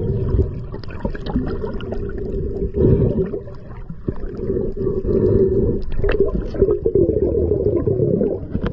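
Underwater sound picked up by the camera: a steady rushing, gurgling rumble of moving water, with scattered faint clicks.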